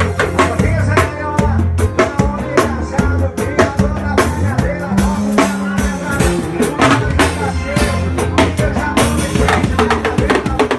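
Forró music with a drum kit playing a fast, steady beat of bass drum and rimshots under a melody line.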